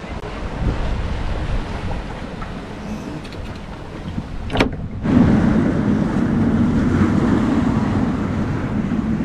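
Wind and breaking waves rushing around a sailing yacht at sea, with wind buffeting the microphone. A sharp click comes about four and a half seconds in, then the rush turns abruptly louder and fuller.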